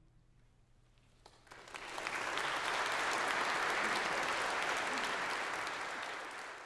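Audience applauding after a short hush. The clapping starts about a second and a half in, swells quickly to a full, steady level, and begins to ease off near the end.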